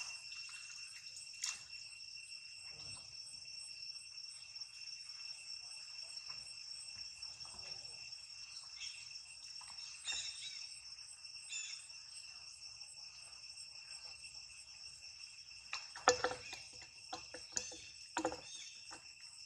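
Steady shrill insect chorus holding several high tones, with a few short sharp sounds near the end.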